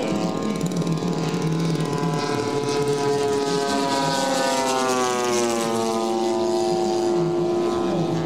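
Propeller engines of radio-controlled scale warbirds, Douglas A-1 Skyraider models among them, flying in formation: a steady drone of several engines. The pitch drops about five seconds in as the planes pass.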